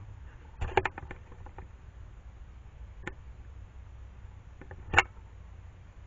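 Ring-tailed coatis bumping and brushing against a trail camera at close range: a cluster of quick knocks and scrapes about half a second in, a single knock around three seconds, and the loudest knock about five seconds in, over a steady low hum.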